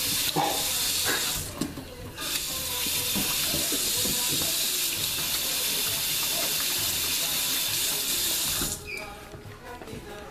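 Water running from a tap into a sink during hand washing. The stream breaks off briefly about two seconds in, resumes, and cuts off abruptly near the end as the tap is shut.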